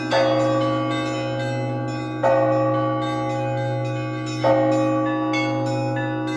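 Russian Orthodox Easter bell ringing: a heavier bell struck three times, about every two seconds, with smaller bells chiming quickly in between, all over a steady low hum.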